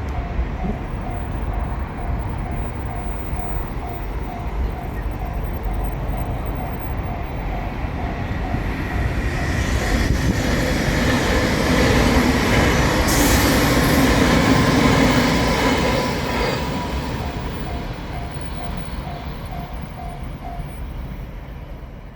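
Level-crossing bell ringing at a regular, even beat while a JR Shikoku Anpanman train passes through the crossing. The train's rush swells to its loudest about 12 to 15 seconds in, covering the bell, with a brief high screech near its peak. It then fades, and the bell is heard again near the end.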